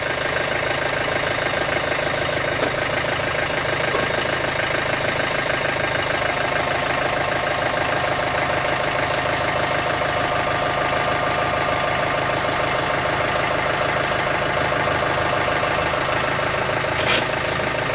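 John Deere 110 backhoe loader's diesel engine idling steadily.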